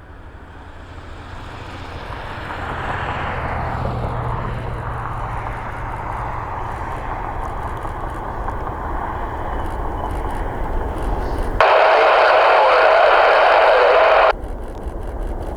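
Boeing 747-400's four turbofan engines at takeoff power, growing louder over the first few seconds and then running steadily. Near the end, a loud burst of air-band radio static with a steady tone cuts in abruptly for about three seconds and cuts off just as suddenly.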